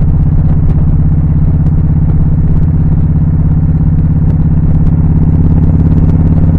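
Touring motorcycle engine running steadily at cruising speed, growing slightly louder near the end.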